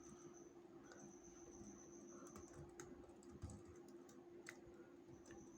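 Faint, scattered computer keyboard keystrokes, irregularly spaced, over a steady low electrical hum and an on-and-off high whine.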